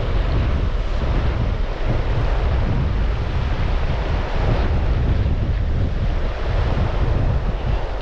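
Wind buffeting the microphone in a low, steady rumble over the constant rush of a fast mountain-river riffle.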